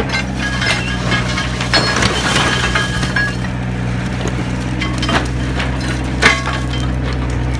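Excavator diesel engine running steadily while the jaws of a mechanical concrete pulverizer crunch concrete, with irregular sharp cracks as chunks break, the loudest about two seconds in, near five seconds and just after six.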